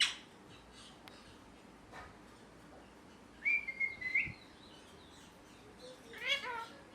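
Pet ringneck parrot whistling a short, steady note that jumps up in pitch at its end, about halfway through, then giving a brief rising chirp near the end.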